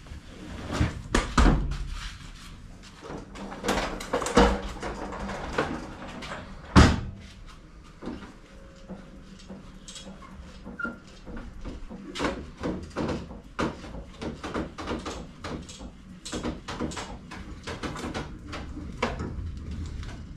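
Irregular knocks and thumps from a heavy pallet assembly table with a form-ply top as it is climbed off and then shifted on its casters across a concrete floor. The loudest bang comes about seven seconds in, and a run of lighter clicks and knocks fills the second half.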